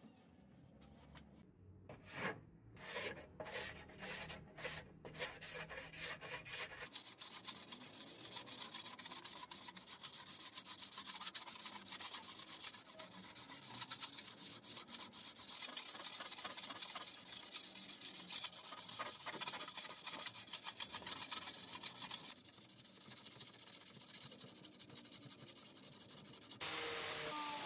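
Stiff bristle brush scrubbing a rusty sheet-steel DVD player cover. It starts with a handful of separate strokes, then turns into quick, continuous back-and-forth scrubbing. Near the end it switches abruptly to a louder, steady whir.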